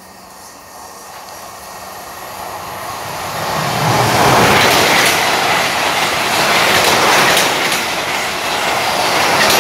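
South Western Railway Siemens Desiro electric multiple unit approaching and running along the platform: a rumble of wheels on rails that swells over the first few seconds, then a steady loud rush with the clicks of wheels over rail joints as the carriages go by.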